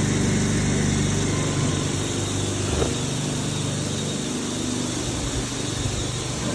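Industrial high-speed PVC mixer machinery running: a steady motor hum with a low drone and constant hiss. A single knock about three seconds in, after which the low hum eases slightly.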